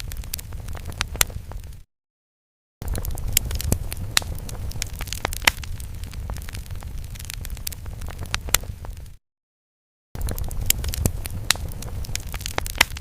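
Fire crackling sound effect: a low steady rumble under frequent sharp crackles and pops. It drops out to dead silence twice, for about a second each time, about two seconds in and about nine seconds in.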